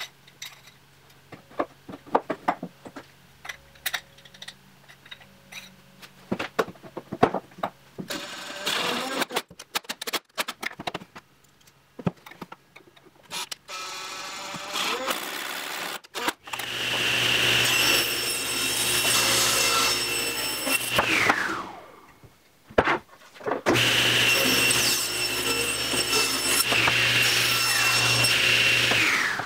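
A table saw running twice with a steady high whine, each run ending as the blade coasts down in a falling whine after switch-off. Before that come scattered clicks and knocks of metal pipe-clamp parts being handled, and a cordless driver driving screws.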